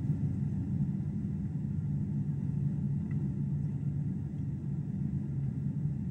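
Airliner cabin noise on final approach: a steady low rumble of the engines and airflow, heard from inside the cabin.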